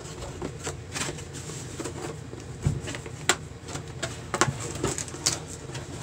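A cardboard box being handled and opened: a scatter of light taps, clicks and scrapes, with a dull thump about halfway through.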